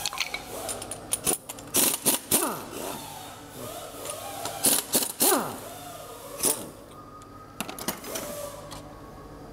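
Sharp metal clinks and rattles of a hand tool and small loose parts against the stripped cast block and crankshaft of a Hyundai D4CB diesel, coming irregularly, some with a short ring.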